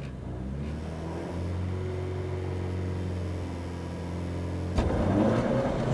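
Volvo 240 rally car's four-cylinder engine heard from inside the cabin, held at steady revs at the stage start, then about five seconds in it revs up and gets suddenly louder as the car launches onto the gravel.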